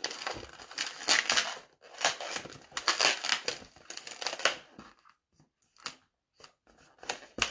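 Latex 260 modelling balloon squeaking and rubbing as bubbles are twisted and lock-twisted together by hand. The squeaks come thick and irregular for about four and a half seconds, then fall nearly quiet apart from a few faint handling sounds.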